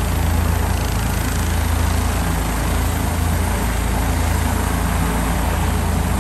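Heavy vehicle engine idling steadily: a constant low hum.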